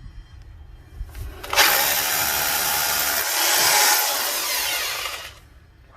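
Bosch Bulldog 11224VSR rotary hammer drilling into a concrete brick. It bites in about a second and a half in, runs loud and steady for about four seconds, then winds down.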